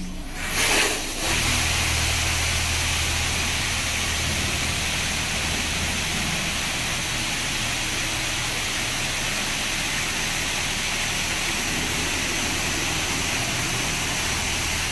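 PE-M9 touchless laser car wash spraying high-pressure water, a steady hiss over a low machine hum. A short louder burst of hiss comes about a second in, and the hum starts just after.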